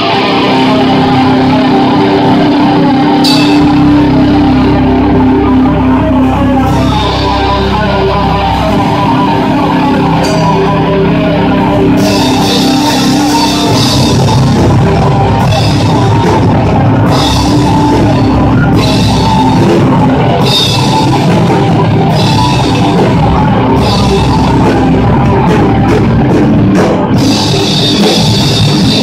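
Heavy metal band playing live and loud, without singing: distorted electric guitars, bass and drum kit, with the drums and cymbals hitting harder from about twelve seconds in.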